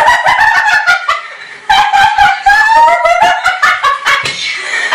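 Loud, high-pitched vocal noises and giggling: a voice gliding up and down in pitch, broken by quick pulsed bursts, with a brief dip about a second in.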